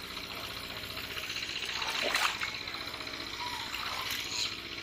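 Water sloshing and splashing as a man wades through a shallow muddy pond handling a fishing net, with louder splashes about two seconds in and near the end.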